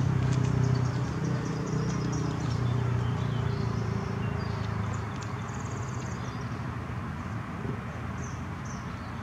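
A low engine hum that fades away over the first six seconds or so, with small birds chirping.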